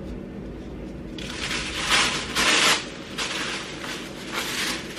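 Gift-wrap paper being handled and crinkled by hand: a long run of rustling from about one to three seconds in, then a few shorter crinkles.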